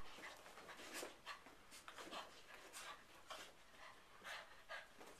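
A small dog play-fighting with a cat: faint, irregular short huffs and scuffles, about ten in five seconds.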